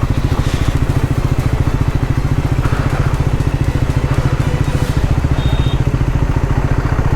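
Triumph Scrambler 400X's single-cylinder engine running at low revs, a steady, even low pulsing.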